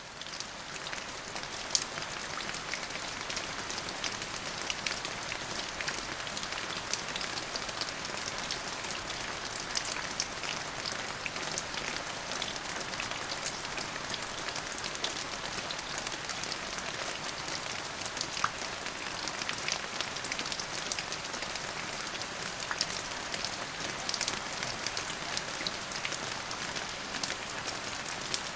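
Steady rain falling, a dense even hiss with many individual drops ticking sharply on a hard surface.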